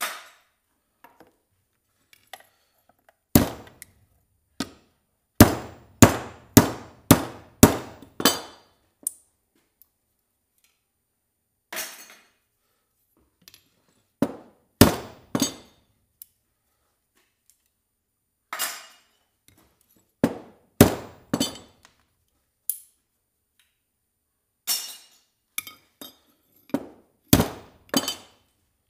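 Hammer striking scrap metal in runs of sharp, ringing blows, about one and a half to two a second, with pauses between the runs.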